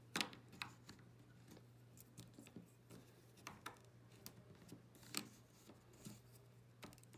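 Small plastic linking cubes clicking and tapping as hands lift, stack and set them down on a sheet of paper on a table. The clicks are light and scattered, about a dozen in all, and the loudest comes right at the start.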